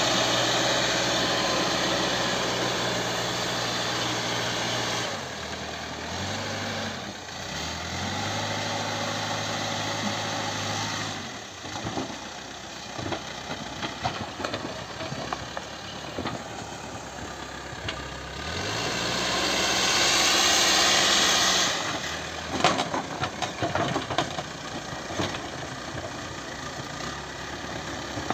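Diesel engine of a CAT 434E backhoe loader working under varying load, its revs dropping about five seconds in, rising again, dropping around eleven seconds, and running up hard about two-thirds of the way through before falling back. Scattered knocks and rattles come through in the lower-rev stretches.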